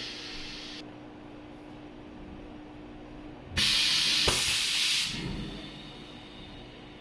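Vamp crimping machine venting pressure with a hiss: one hiss cuts off under a second in, and a louder hiss starts about three and a half seconds in and lasts about a second and a half, with a sharp knock partway through. A steady machine hum runs underneath.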